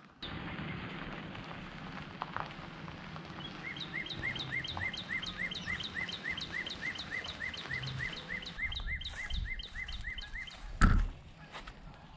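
A bird calling a long run of evenly repeated chirps, about three or four a second, for about seven seconds over a steady outdoor background. A single loud thump comes near the end.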